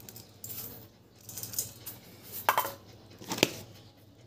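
Guava being mixed with sugar by hand in a stainless steel bowl: a few short rustles and light clinks against the metal, with one sharper clink about three and a half seconds in.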